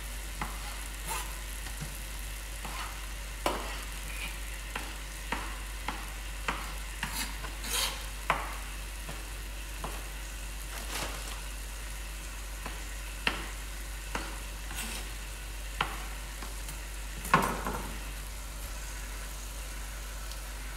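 Chef's knife dicing raw chicken breast on a plastic chopping board: irregular sharp taps as the blade meets the board, about one or two a second, with a louder knock near the end, over a steady background hiss.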